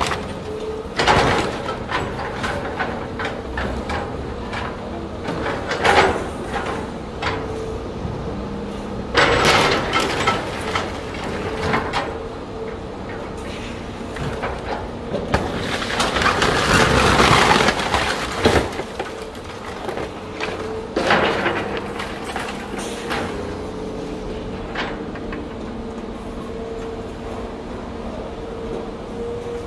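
A Caterpillar excavator's scrap grapple crushing a Mercedes-Benz SLS AMG's body: a string of crunches and bangs of bending sheet metal, with a longer crunch a little past the middle. Underneath runs the machine's steady running note.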